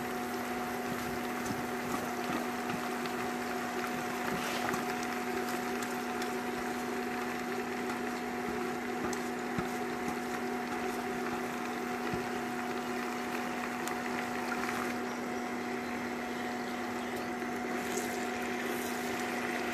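Steady sizzling of food frying in mustard oil in a pan as marinated chicken is added, over a steady electrical hum from the cooktop.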